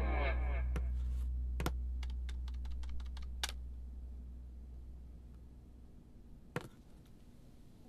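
Scattered key clicks from typing on a laptop keyboard: a few irregular taps, a quick run of them about two and a half to three seconds in, and single sharper clicks around three and a half and six and a half seconds. A low hum fades away under them over the first several seconds.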